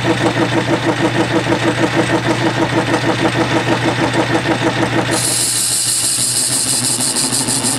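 Metal lathe turning a cast iron bar supported in a steady rest, running with a rhythmic pulsing beat of about six a second. The steady rest is chattering on the rough surface of the bar, a sign of poor surface finish. About five seconds in, the sound changes suddenly to a higher, hissing tone.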